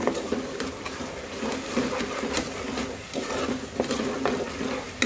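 A spoon stirring and scraping masala paste frying in a metal pot, with frequent clicks of the spoon against the pot and a light sizzle.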